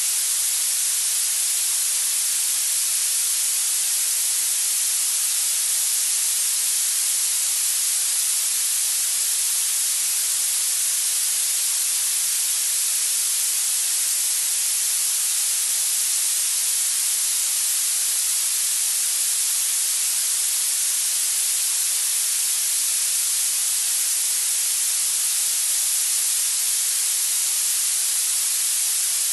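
Steady electronic hiss, heavier in the high pitches than the low, with no change in level or pitch: a continuous masking noise for tinnitus retraining therapy.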